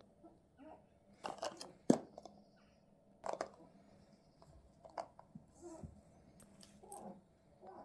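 Pet rabbit chewing food, a run of short irregular crunches and clicks.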